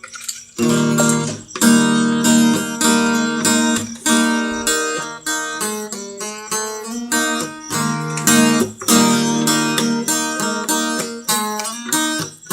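Acoustic guitar strumming chords in a steady rhythm as a song's instrumental intro, starting about half a second in.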